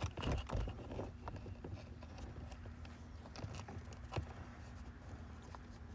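Faint, scattered clicks and taps of small plastic trim clips and pieces being handled and fitted by hand, with a couple of sharper clicks in the first second and another about four seconds in.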